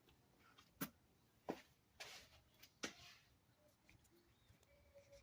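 Near silence broken by four faint, scattered clicks and one brief soft rustle.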